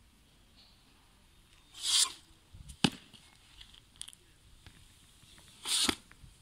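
Movement sounds of Chen-style tai chi practice: two short rushing swishes with fast movements, about two seconds in and near the end, and a single sharp thud just under three seconds in.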